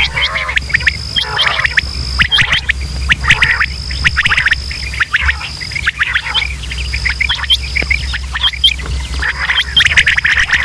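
Many quail calling over one another in a dense run of short, sharp chirps. A thin steady high tone comes and goes above them, with a low hum beneath.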